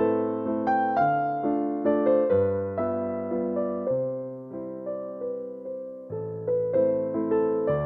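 Background music: a gentle piano melody of single struck notes over sustained bass notes.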